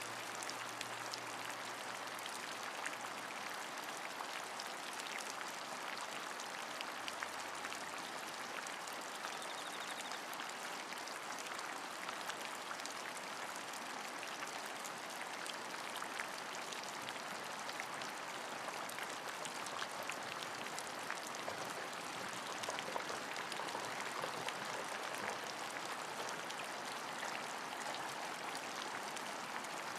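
Steady rain: an even hiss with many small, separate drop hits throughout.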